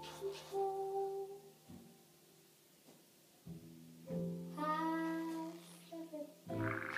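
Background music: held instrumental notes sounding together, which fade out about two seconds in and come back a little after four seconds.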